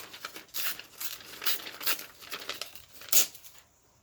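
A dictionary page being torn and handled by hand: a run of short paper rips and rustles, the loudest rip about three seconds in.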